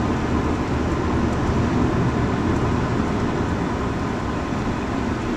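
Steady road and engine noise of a car driving at an even speed, heard from inside the cabin.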